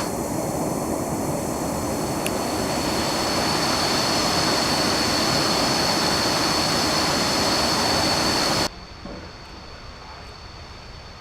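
Waterfall water rushing in a steady roar, with a steady high-pitched whine over it. Near the end the sound drops abruptly to a quieter rush.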